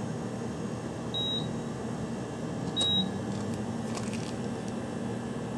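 Gas pump payment terminal giving two short high beeps about a second and a half apart, followed by a brief run of faint rapid ticking from its receipt printer, over a steady low hum.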